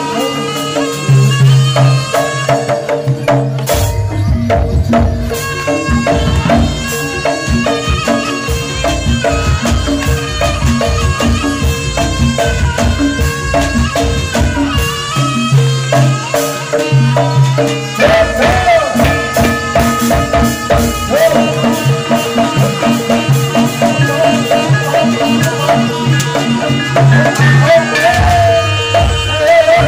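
Javanese jaranan ensemble music played live: a steady drum-and-gong beat with held metallic tones and a dense rhythm of strokes, and a wavering melody line over it about two-thirds of the way in and again near the end.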